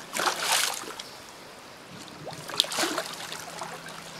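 Water splashing as a large amarillo (jau) catfish thrashes in the shallows at the bank, in two spells, one at the start and one past the middle, over the steady rush of the river.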